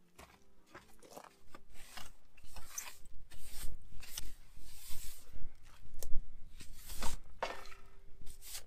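A metal ash scraper dragging hot coals and embers across the clay floor of a cob oven and raking them out, with irregular scrapes, crunches and clinks. Two sharper knocks come about six and seven seconds in. The oven is being cleared so the bread can bake on the heat left in the clay.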